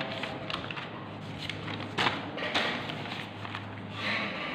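Handling noises of paper notes on a tabletop: a few knocks and taps, then a short rustle of paper being slid away near the end, over a steady low hum.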